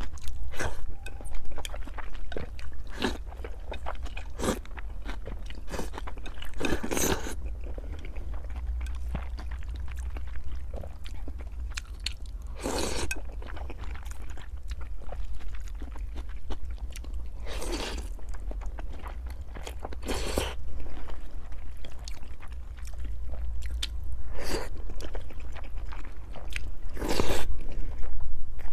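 Close-up chewing and wet mouth sounds of a person eating steamed rice noodle rolls (cheung fun), many small clicks with a longer, louder mouth sound every few seconds.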